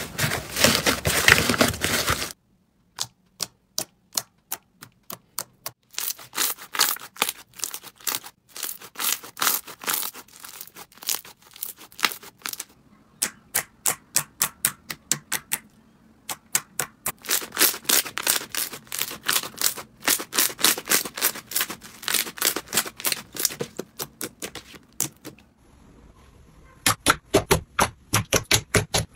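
Hands squeezing and poking slime, making sticky popping clicks. For the first two seconds there is a dense crunchy crackle from slime packed with foam beads. After that come quick runs of separate sharp pops, with short pauses between them.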